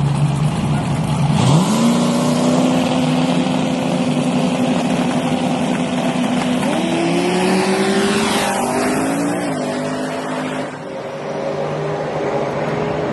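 Race car engine running loud at high revs; its pitch jumps up about a second and a half in, holds steady, climbs further near the middle and drops back near the end.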